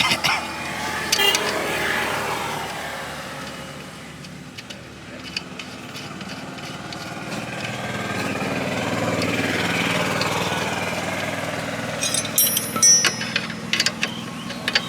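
Two motor vehicles passing by, each growing louder and then fading, the second one longer, about 8 to 11 seconds in. Near the end come several sharp metallic clinks.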